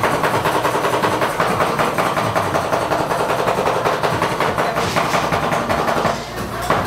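Metal spatulas chopping and tapping rapidly against a frozen steel cold plate, a fast run of clicks as fruit is chopped into the cream base while it freezes for rolled ice cream.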